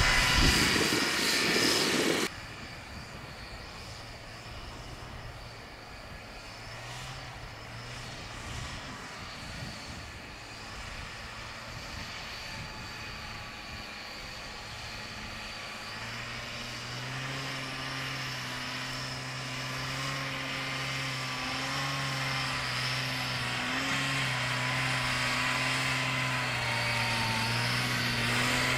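Buran 640 snowmobile's two-cylinder two-stroke engine running as it drives through deep powder. It is loud at first, drops abruptly to a more distant steady engine note about two seconds in, and grows louder near the end as the snowmobile comes closer.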